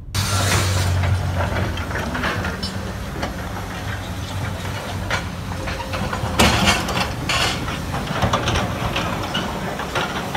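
Hyundai tracked excavator's diesel engine running, with irregular knocks and clatter from concrete rubble being worked.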